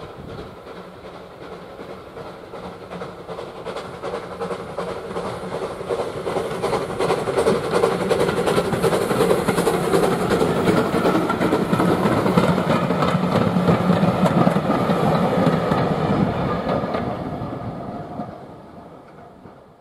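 LBSC A1 Terrier 0-6-0 tank engine hauling a train of coaches past: the sound builds over several seconds, stays loud for several seconds as the engine and coaches go by with a clatter of wheels over the rail joints, then fades quickly near the end.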